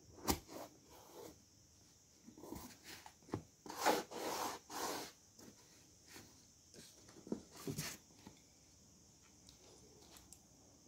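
Handling of a moulded-foam gimbal case: a sharp snap as the front clasp is released, then foam squeaking and rubbing as the lid is lifted open, the loudest part a few seconds in. A couple of light knocks follow as a plastic part is lifted out of its foam slot.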